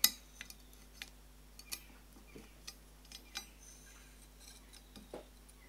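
Light metal clicks and clinks as a steel feeler gauge and a Veritas honing guide are handled and repositioned, with a sharper click right at the start and about a dozen faint ticks after it.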